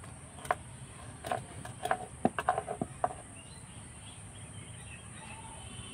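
Light clinks and taps in a quick cluster from about half a second to three seconds in, as hands roll a stack of floured dough sheets on a wooden board with bangles knocking together. A steady high insect drone runs underneath.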